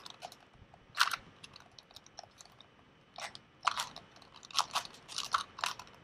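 A 2x2 Rubik's cube being turned quickly during a speedsolve: bursts of plastic clicking and clacking as its layers snap round, in several quick flurries.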